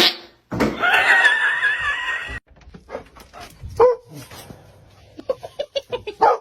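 A dog vocalising. It gives one long, wavering, high-pitched whine starting about half a second in, a single short call near four seconds, and then a quick run of short yips near the end.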